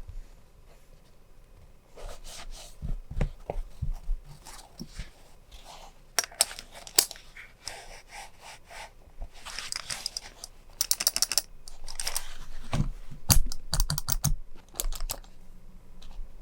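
Hands handling stationery items and a pouch: scattered light taps, clicks and rustling, with a quick run of rapid clicks about two-thirds of the way through and a few heavier knocks soon after.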